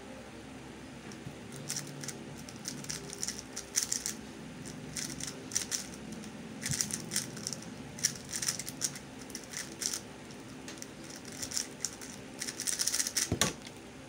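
MF3RS2 3x3 speed cube being turned rapidly during a speedsolve: quick clicking turns come in short clusters, with a single thump near the end as the cube is set down. A steady electric fan hum runs underneath.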